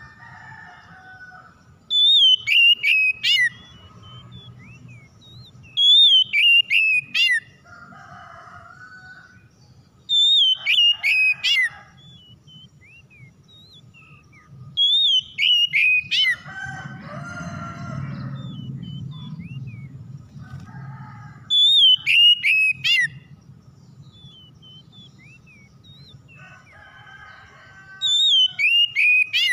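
Oriental magpie-robin singing: six loud whistled phrases, each falling in pitch and ending in a few quick notes, with softer chattering between them.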